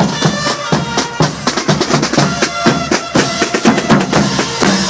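Marching drum band playing a fast, busy rhythm on snare drums and bass drums.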